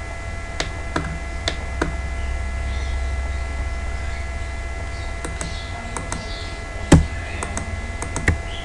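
Steady electrical hum from the recording setup, with scattered sharp clicks of a computer mouse and keyboard, several clustered after about five seconds and one louder click about seven seconds in.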